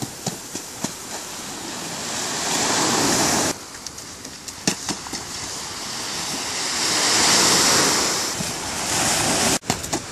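Small waves breaking and washing up the shore, the surf swelling louder and fading away twice, with wind buffeting the microphone. The sound breaks off abruptly about three and a half seconds in and again near the end.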